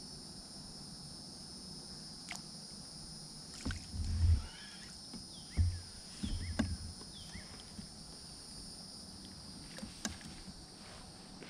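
Steady high-pitched insect drone over open water, with a few short bird chirps, broken by several low thumps and clicks, the loudest about four seconds in and two more around six to seven seconds.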